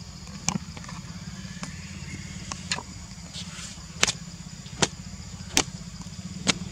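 A steady low hum like an idling engine, under a steady high-pitched drone, with about eight sharp clicks at uneven intervals of roughly half a second to a second.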